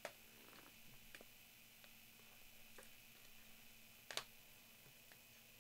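Near silence: room tone with a few faint clicks and taps from trading cards and their plastic holders being handled, the two sharpest right at the start and about four seconds in.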